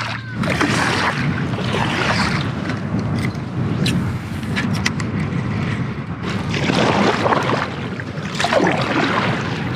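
Wind buffeting the microphone over water lapping and splashing around an inflatable paddle board, swelling and easing in gusts.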